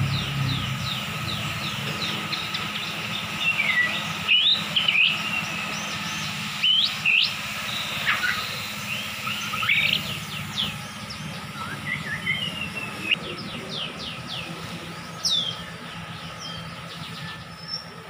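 Caged songbird singing a varied song of quick whistled notes and sharp downward-sliding chirps, in scattered phrases with a few louder notes, over a low steady background hum.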